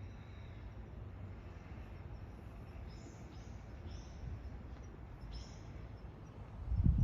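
Outdoor ambience: a steady low rumble with several short, high bird chirps in the middle, and a louder low thump near the end.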